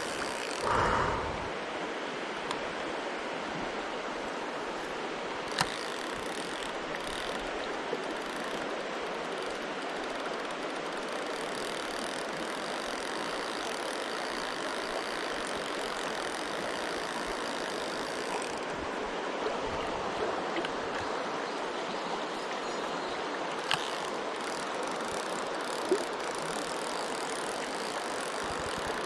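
Mountain stream water rushing with a steady, even noise. A brief louder rustle comes about a second in, and a few sharp clicks later on.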